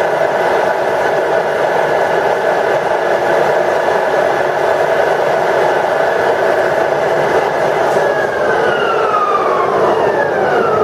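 Ryazan 1M63D screw-cutting lathe running under power, its headstock gears giving a steady whine of several tones. About eight seconds in, the whine starts falling steadily in pitch as the spindle and gears wind down.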